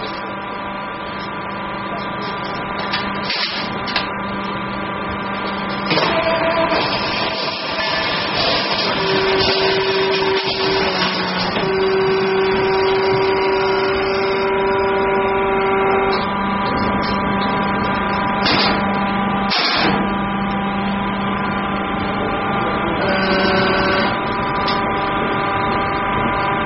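Timber sorting line machinery running: a steady mechanical hum with several whining tones that come and go and shift pitch, growing louder about six seconds in, with a few short noisy bursts.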